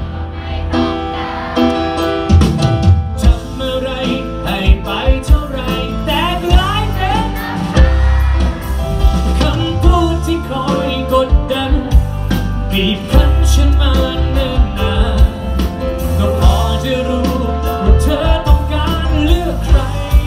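Live pop-rock band playing loud through a concert PA, heard from the crowd: a male singer over electric guitar, bass and a drum kit keeping a steady beat.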